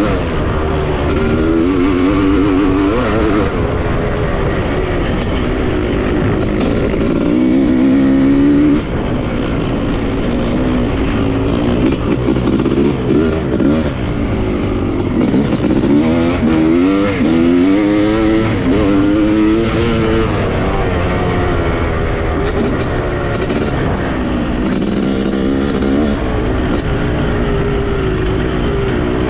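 1996 Honda CR500's 491 cc two-stroke single-cylinder engine, heard from on board, revving up and down repeatedly as the dirt bike is ridden along the trail, its pitch rising and falling over and over with the throttle and gear changes.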